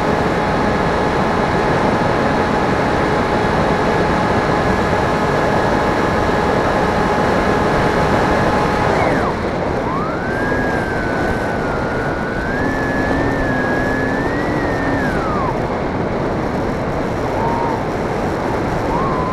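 Electric motor of an FPV RC plane whining steadily over a rush of wind noise. About nine seconds in, its pitch drops sharply. After that a lower tone wavers up and down, rising and falling through several seconds, and returns briefly twice near the end.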